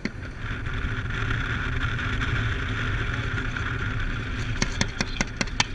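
Steady drone of a military vehicle driving, with wind on the microphone. Near the end comes a rapid string of sharp clicks, about seven a second.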